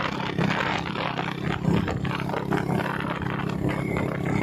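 Motorcycle engine running steadily while under way, with wind buffeting the microphone.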